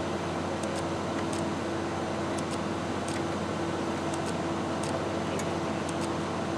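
Steady drone of heavy construction machinery at a bridge-girder worksite, with a constant low hum running under it. Faint, short high clicks are scattered through it.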